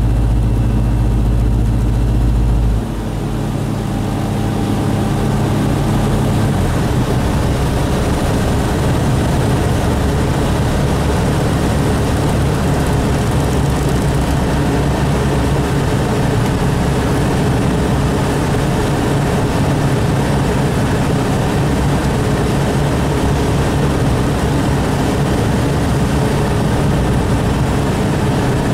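Light aircraft's piston engine and propeller heard from inside the cockpit. The engine note steps down and gets quieter about three seconds in, changes again a few seconds later, then runs steadily under a rush of air.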